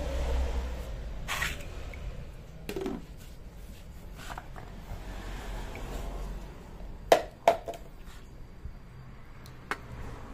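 A few knocks and clicks of things being handled, the loudest two sharp knocks close together about seven seconds in, over a low steady hum.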